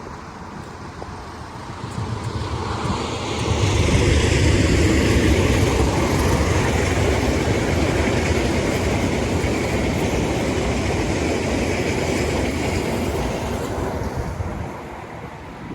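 A train passing close by: its rumble and rattle swell over the first few seconds, hold loud and steady, then fade near the end.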